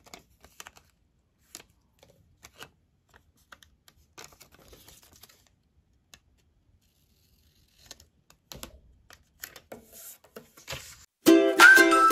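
Sticker label paper being peeled from its backing and pressed onto a planner page: faint scattered ticks and soft paper rustles. Background music starts loudly near the end.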